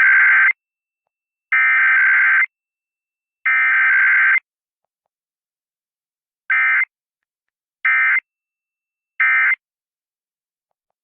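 Emergency Alert System SAME data tones: three harsh, buzzing bursts of about a second each, a second apart, encoding the alert header, then after a pause three short bursts, the end-of-message code that closes the test.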